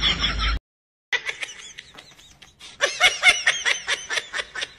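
Laughing that cuts off abruptly, about half a second of silence, then a person laughing in short, quick repeated bursts.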